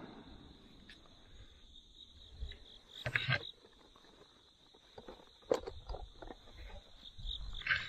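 Crickets in the field giving a steady, high-pitched trill, faint. A few soft knocks and rustles are scattered through it.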